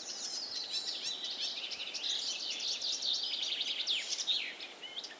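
A chorus of songbirds singing at once, with many quick overlapping chirps and whistles that thin out near the end.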